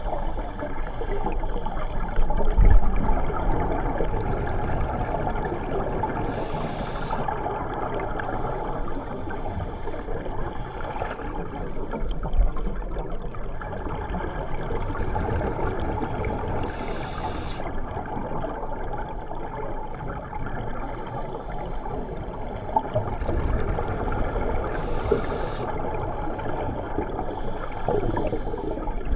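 Underwater sound of scuba divers: a steady muffled rushing, with a brief hiss of exhaled regulator bubbles about every eight to ten seconds and a couple of low thumps.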